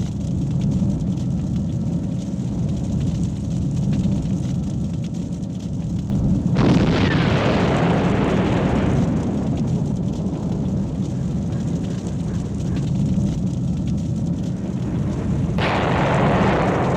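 Sound-effects-library explosions over a steady low rumble: one sudden blast about six and a half seconds in that dies away over a couple of seconds, and a second blast near the end.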